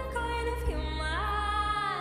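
Slow music: a melody that slides up and down between notes over a held low bass note, which drops out near the end.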